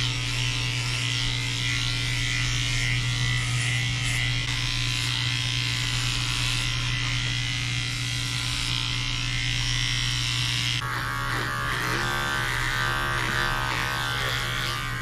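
Electric pet grooming clippers running with a steady hum as they shave a dog's curly coat.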